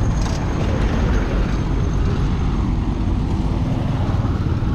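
Road traffic passing close by: a steady rumble of engine and tyre noise.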